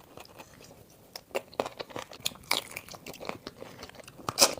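A person biting and chewing shell-on shrimp and boiled onion close to the microphone: irregular crunches and wet mouth clicks, with a louder crunch near the end.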